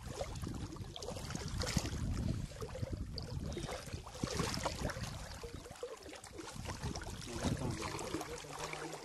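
Legs wading through shallow water, with irregular sloshing and swishing splashes.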